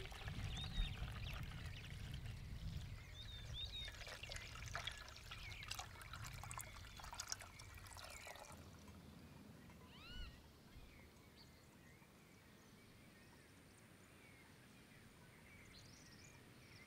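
Coffee poured from a stovetop moka pot into an enamel mug, a steady trickle and splash of liquid that stops about eight and a half seconds in, leaving quiet outdoor background.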